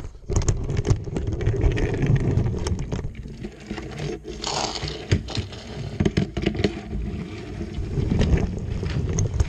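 Plastic Lego toy vehicles pushed by hand along a toy road track close to the microphone: wheels scraping and rumbling, with many irregular clicks and knocks from handling.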